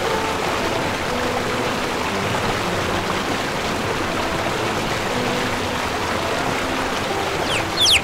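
Steady rushing of flowing water, like a stream, with soft music underneath. About half a second before the end, a few high, quickly falling chick peeps come in.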